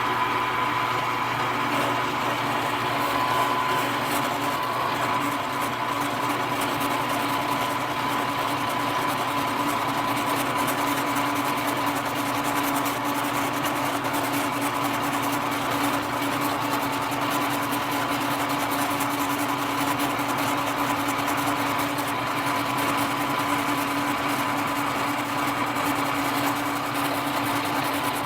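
Milling machine spindle motor running steadily, a constant hum with a steady whine over it.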